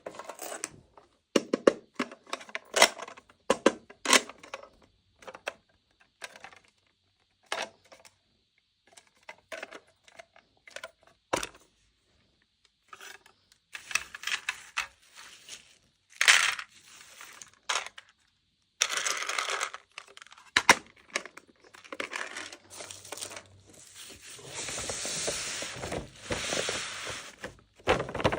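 Toy packaging being handled and opened. Sharp clicks and taps of small plastic pieces come first, then longer stretches of crinkling and tearing wrapping, the longest near the end.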